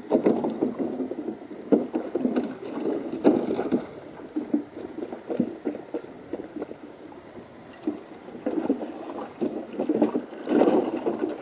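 Water sloshing and splashing in a small black plastic water tank as a wirehaired pointing griffon stands and shifts about in it, in irregular bursts, loudest right at the start and again about ten seconds in.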